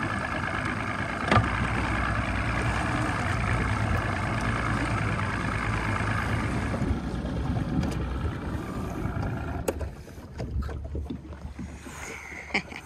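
Bass boat's outboard motor idling steadily, with a single knock about a second in. The engine sound fades about seven seconds in, leaving only a few faint clicks.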